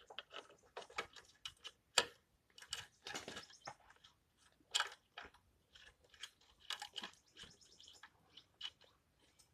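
Irregular light clicks and metal taps from hand tools and parts as an old motorcycle horn is unbolted, with a few sharper knocks about 2, 3 and 5 seconds in.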